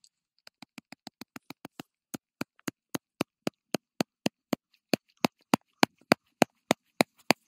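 Gloved hand tapping on a snow shovel blade laid on top of an isolated snow column in an extended column test: about thirty sharp taps in three sets, first quick and light, then harder at about four a second, then the hardest. The column gives no propagating fracture under these taps.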